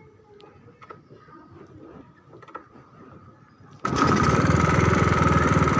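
A few faint clicks, then about four seconds in a small motor switches on abruptly and runs loudly with a steady whine.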